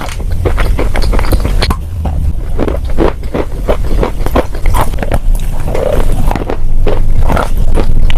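Chalk and clay being bitten and chewed close to the microphone: many short, irregular crunches.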